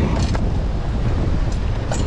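Wind buffeting the microphone, over surf breaking against the cliff below, with a few short knocks.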